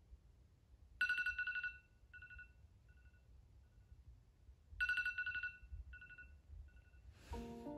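Electronic phone alarm ringtone: a short trilling tone followed by fainter, shortening echoes. It sounds twice, about four seconds apart. Near the end a brief swish comes, and then background music starts.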